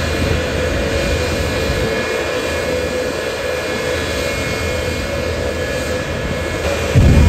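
Jet engines of a jet-powered drag-racing semi truck idling with a steady whine. Near the end a sudden loud, deep rumble breaks in as the engines light up into the flame-shooting afterburner run.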